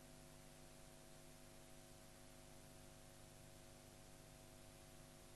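Near silence: a faint, steady hiss with a low hum.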